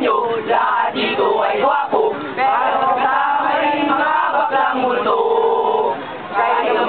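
A group of scouts chanting and singing a camp yell together, with a note held for about a second a little after five seconds in.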